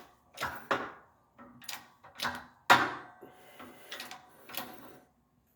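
Hydraulic shop press working on a wheel hub held in a bearing puller: a series of sharp metal clicks and knocks, about one every half second to a second, the loudest about two and a half seconds in, as the press is pumped up against the hub.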